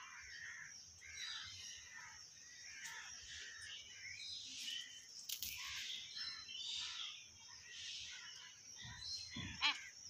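Common hill myna giving soft scattered chirps and whistles, with one louder, harsher call about nine and a half seconds in.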